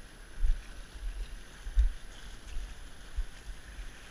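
Wind buffeting the camera microphone in low gusts, the strongest about half a second in and again near two seconds in, over a steady wash of sea against the rocks.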